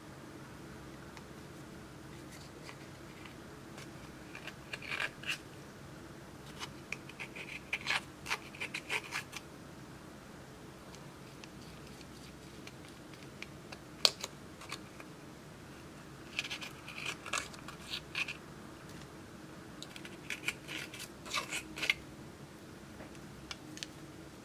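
A thin metal spatula scraping pressed powder makeup out of a plastic palette, in short scratchy strokes that come in bursts with pauses between them, and one sharp click about fourteen seconds in as the tool knocks the compact.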